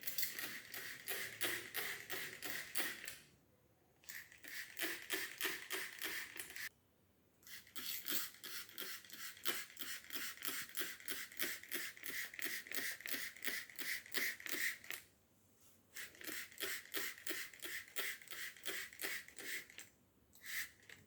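Hand-pump trigger spray bottle squirting a homemade mist of water, alcohol and fabric softener, about four quick squirts a second, in four long runs with short pauses between them.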